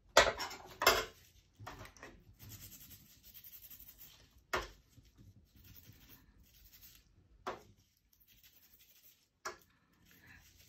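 Two sharp clinks of small metal spray-gun parts against an aluminium pan, then faint rubbing and scraping as a paint-crusted part is cleaned with a small brush, broken by a few more single clicks.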